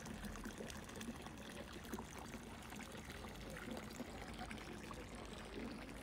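Steady splashing of running water.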